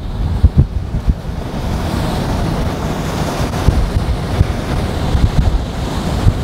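Strong storm wind blowing across the microphone: a loud, steady rushing with frequent irregular low thumps from gusts hitting the mic.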